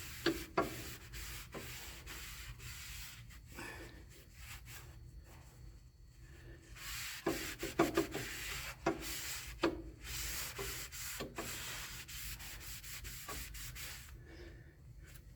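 Hand scrubbing on a steel plate, rubbing off grease and mill scale in uneven stretches of strokes with a few light knocks. The scrubbing stops near the end.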